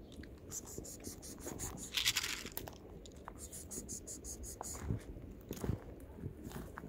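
Footsteps crunching and rustling over grass and dry ground, with a rustle about two seconds in, a few low thumps near the five- and six-second marks, and short runs of quick high ticking.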